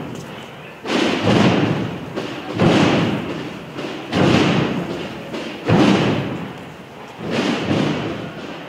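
Procession drums, bass drums with smaller drums, beating a slow, steady march: a pair of heavy strokes about every second and a half.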